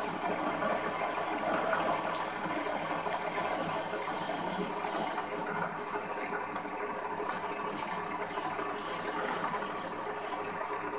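Small CNC milling machine running, a high-pitched spindle whine over a steady hiss of cutting. The whine cuts out about six seconds in and comes back a second or so later.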